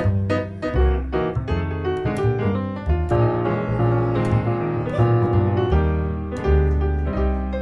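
Live jazz from a grand piano and an upright double bass. The piano carries the chords and runs over the bass's low notes.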